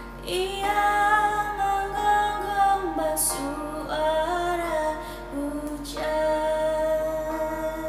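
A woman singing long held notes over backing music, in three phrases with a short break and a hissed consonant about three seconds in.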